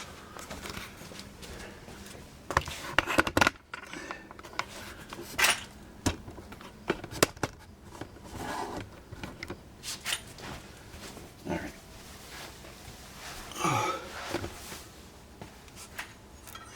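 Scattered light clicks and knocks of small metal parts being handled by hand: washers and a lug nut being gathered and fitted onto a new wheel stud. A few short soft sounds from the worker's breath or mouth come in near the middle and near the end.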